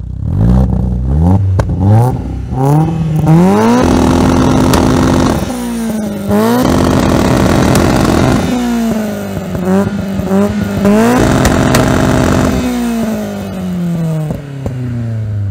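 BMW E30 with a Toyota 3S-GE Dual VVT-i 'Beams' four-cylinder engine revving hard. A run of quick rising revs is followed by long stretches held at high revs, broken by short dips, as the car spins in circles on the tarmac. The revs wind down over the last few seconds.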